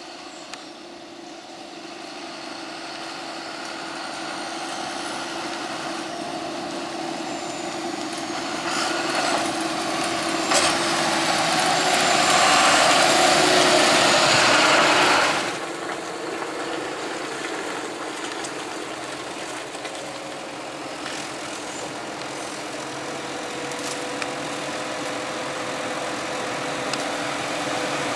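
Heavy farm machinery engine running, growing louder as it approaches, with a louder stretch about halfway through that cuts off suddenly before the steady engine sound goes on.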